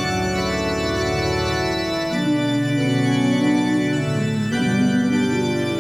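Organ playing sustained chords at the close of a hymn, with no singing. The chord changes about two seconds in and twice more near the end.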